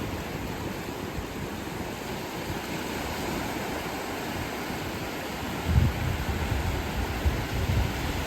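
Wind: a steady rushing, with gusts buffeting the microphone about six seconds in and again near the end.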